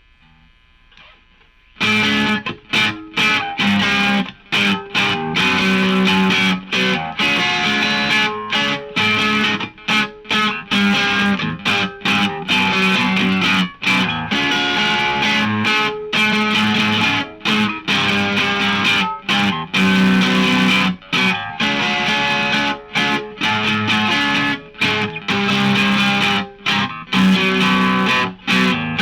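Electric guitar played with overdrive distortion: choppy chord phrases with frequent short stops, starting about two seconds in after a faint moment.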